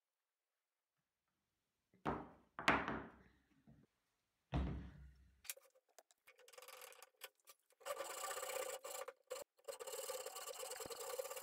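A few knocks and thumps, then a hand saw cutting into a wooden block clamped in a bench vise, with steady rasping strokes from about eight seconds in.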